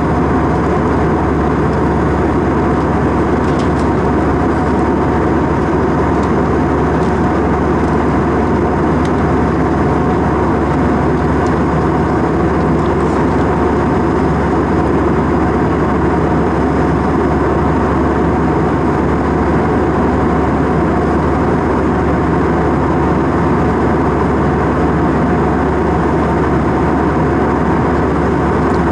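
Steady drone of a jet airliner in flight heard inside the cabin by the window, engine and rushing air blended into one even noise with a few faint steady tones over it.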